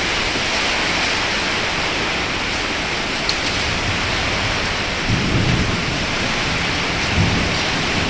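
Heavy rain pouring down steadily in a thunderstorm, with low rumbles swelling about five seconds in and again near the end.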